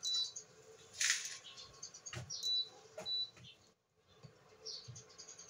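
Induction cooktop giving three short, high beeps while a frying pan is shifted and knocked about on its glass top, with a louder scrape about a second in. The beeping is the cooker failing to detect the pan, so it will not heat.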